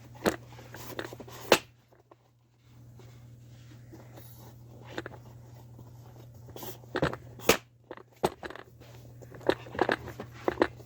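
Handling noises: scattered clicks and knocks as the camera is repositioned, over a steady low hum.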